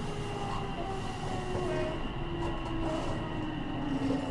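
Tsukuba Express TX1000 series electric train running, with the whine of its Toshiba IGBT two-level inverter and traction motors over the rumble of the wheels on the rails. Several whine tones fall slowly in pitch throughout, the sign of the train slowing down.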